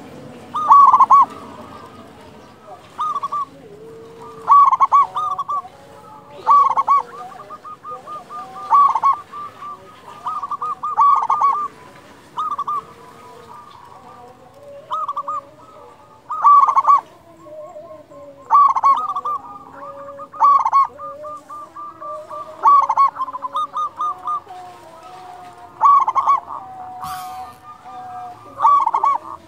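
Zebra dove (perkutut) singing loudly, repeating its cooing phrase about every two seconds, each phrase a quick run of notes. Fainter calls continue underneath.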